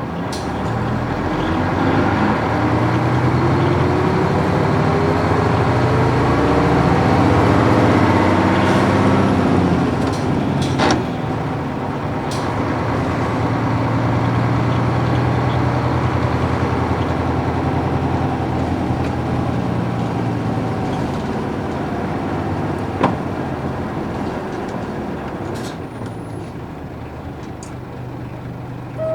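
Nissan Diesel PF6 diesel engine of a U-UA440HSN city bus with a five-speed overdrive manual gearbox, heard from inside the bus as it drives. The engine note climbs for about nine seconds under acceleration, falls back with a click about ten seconds in, runs steadily, then eases off towards the end. A few sharp clicks can be heard along the way.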